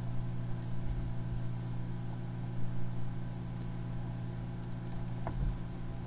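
Steady electrical hum of the computer recording setup, with a few faint mouse clicks. A brief faint rising squeak and a low thump come about five seconds in.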